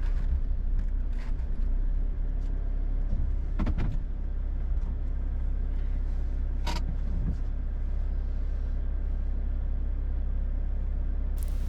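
Car driving, a steady low rumble of road and engine noise, with a few short clicks about four and seven seconds in.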